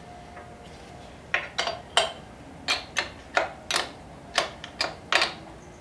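Metal wrench clicking on a motorcycle's rear chain-adjuster bolt as the bolt is turned to move the rear wheel back and take up chain slack. About a dozen sharp metallic clicks, roughly three a second, begin about a second in and stop near the end.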